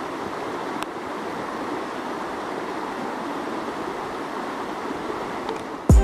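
The Hoh River rushing steadily, an even wash of water noise. Music with a deep drum beat comes in right at the end.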